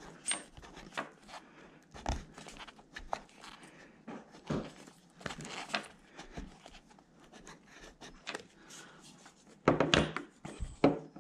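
Irregular light clicks, taps and rustles of small parts and a hand tool being handled at a workbench, with a brief louder clatter about ten seconds in.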